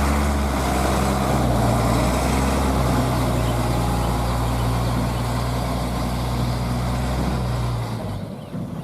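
Large engine, such as a truck's, running steadily with a low hum, then falling away about eight seconds in.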